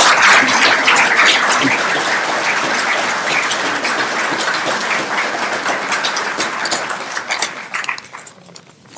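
Audience applauding, the clapping slowly thinning and dying away near the end.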